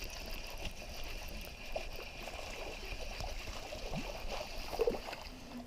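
Water splashing and trickling as a small hooked bluegill is reeled in through a shallow creek pool, over a steady high buzz.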